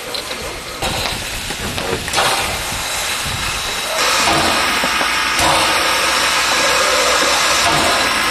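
Steam locomotive hissing steam, uneven at first, then swelling about four seconds in into a loud, steady hiss.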